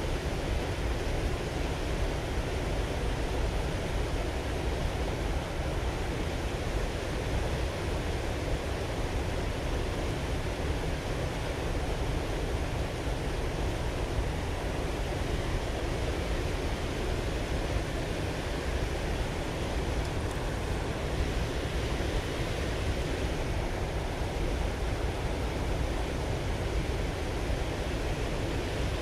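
Steady rushing of river water pouring over a low weir and running through the rapids below it.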